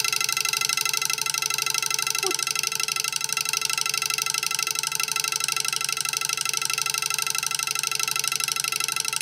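Homemade twin-coil vibrating switch buzzing steadily, with many high overtones. Its iron rod chatters rapidly between the contacts of two coils, making and breaking the circuit like an electric bell's interrupter.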